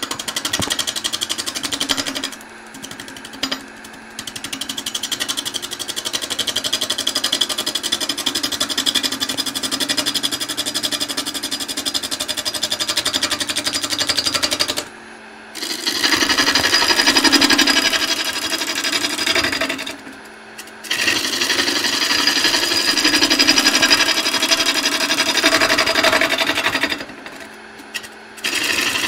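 Lathe gouge roughing down a spinning, out-of-round green magnolia log: a loud, very rapid ticking rattle as the tool bites the high spots, dropping out three or four times as the tool lifts off, over the lathe's steady hum.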